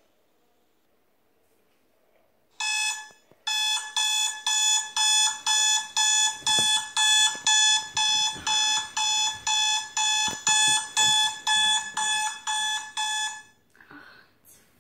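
Smartphone alarm beeping, about two beeps a second, starting about three seconds in and stopping near the end as it is switched off. Faint rustling of bedding sounds underneath the beeps.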